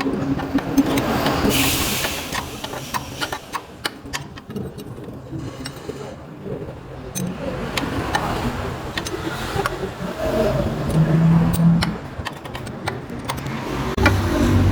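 A wrench turning a bolt threaded into a GM engine's oil pressure relief valve, used as a puller to draw the valve out of its bore: irregular metal clicks and scraping. A low hum comes in near the end.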